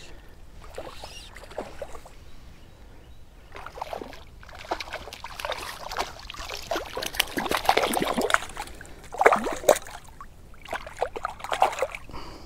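A hooked trout splashing and thrashing at the water's surface close in while being played on a fly rod, with water dripping off the line, in irregular bursts that grow louder and busier from about four seconds in.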